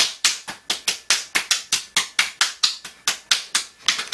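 A quick, even run of sharp clicks, about five a second.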